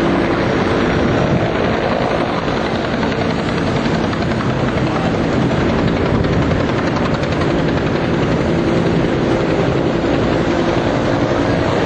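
Spanish Coast Guard rescue helicopter running, its rotor and engine making a loud, steady drone.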